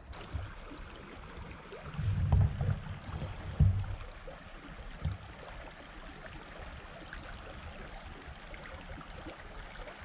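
Shallow creek water running steadily over a rocky bed, with a few short low thumps about two, three and a half and five seconds in.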